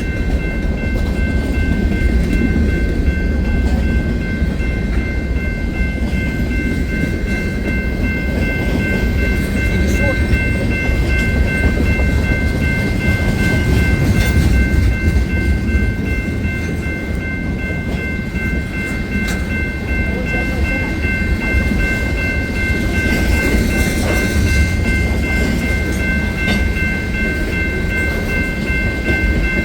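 Train passing with a steady, heavy rumble and faint rail clicks, with a constant high-pitched multi-note tone held throughout.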